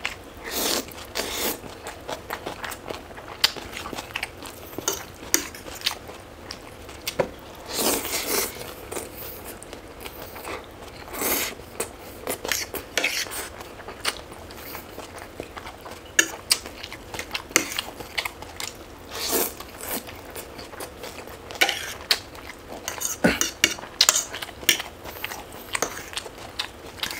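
Eating sounds: biting and chewing food in irregular bursts, with cutlery clinking against dishes now and then.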